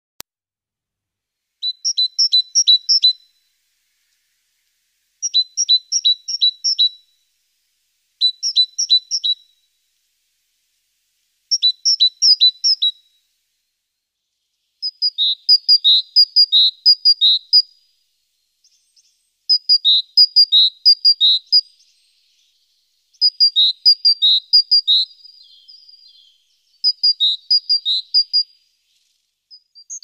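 Great tit singing: bouts of quick, rhythmic repeated two-note phrases, about eight bouts with short pauses between, the later ones longer.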